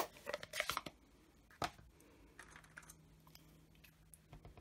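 Plastic Stampin' Up! ink pad case clicking as it is opened and set down: a sharp snap at the start, a quick run of clicks and taps, another knock about a second and a half in, then a few faint light taps.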